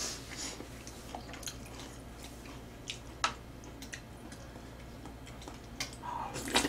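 Scattered soft clicks and taps of chopsticks against the tray and small eating sounds over a low steady hum, the sharpest click about three seconds in.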